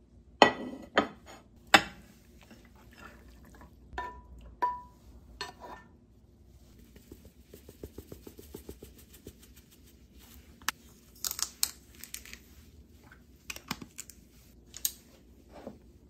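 Kitchen handling sounds: a ceramic plate set down on a stone countertop with sharp clinks, then a few clinks of utensils against the plate, two of them ringing briefly. About seven seconds in comes a quick run of small ticks as dried parsley is shaken on, followed by scattered light clicks of wooden cutlery set down.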